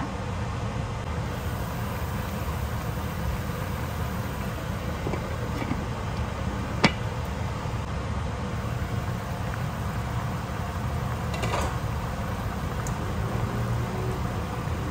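Fish and pineapple broth boiling in a pan on a gas stove, a steady bubbling hiss, with a single sharp click about seven seconds in.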